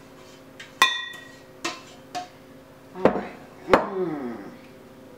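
Metal spoon and stainless steel pot clinking while peach filling is emptied into a pie dish: a sharp, ringing clink about a second in, a couple of lighter taps, then two heavier knocks about three seconds in as the pot is set down on the countertop.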